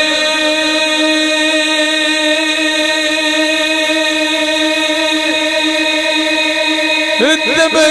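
A man's voice singing a Punjabi Sufi kalam unaccompanied into a microphone, holding one long, steady note on the word "tabaqe", then breaking into quick ornamented turns near the end.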